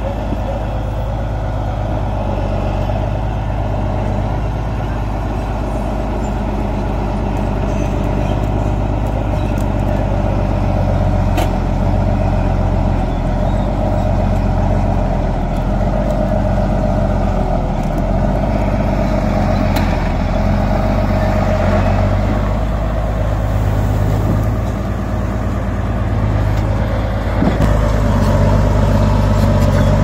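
Komatsu crawler bulldozer's diesel engine running steadily under load as the blade pushes earth and rocks, getting a little louder near the end.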